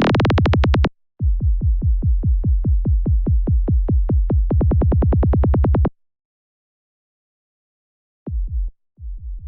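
Synthesized psytrance kick and rolling bass playing in fast, even pulses. The top of the sound climbs higher over a few seconds as a filter opens, then cuts off suddenly. After a two-second gap it restarts in short, duller bursts.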